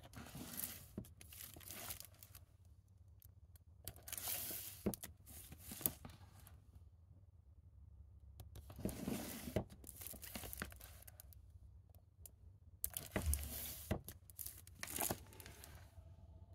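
Handling noise: rustling and scraping in four bursts of a couple of seconds each, with a few sharp clicks among them.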